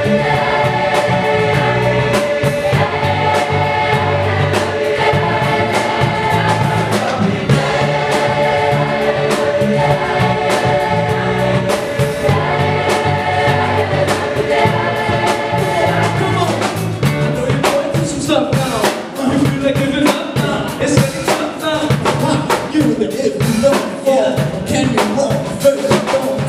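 Large mixed youth choir singing in long held chords. About 17 seconds in, the chords give way to a rhythmic beatbox groove of clicks and kick-drum sounds made into handheld microphones, with a single voice singing over it.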